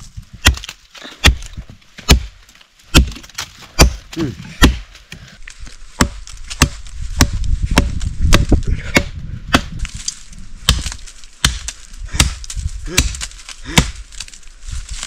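Repeated chopping strokes of a blade biting into wood, a little over one a second and unevenly spaced, as a wooden post is cut.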